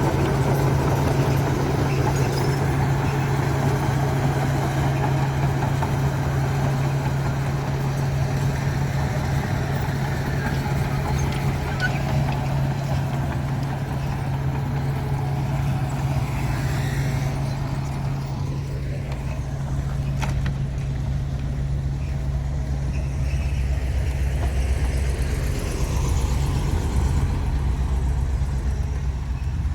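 Heavy diesel earthmoving machinery running steadily with a deep drone. Its note shifts lower past the middle.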